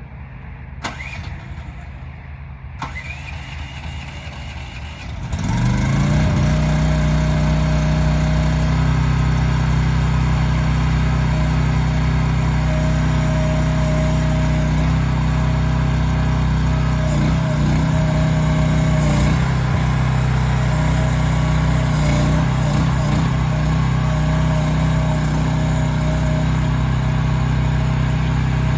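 Lanty mini excavator engine starting: a short crank, then it catches about five seconds in and settles into a steady idle.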